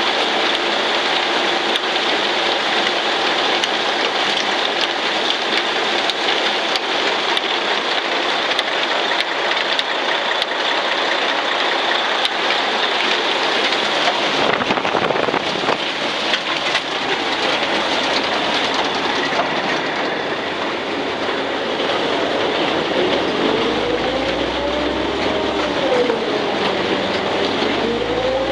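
Mixer machinery on a Western Star 4900XD feed truck running: a steady, dense metallic rattle and clatter. Near the end a tone rises and falls a couple of times over a low rumble.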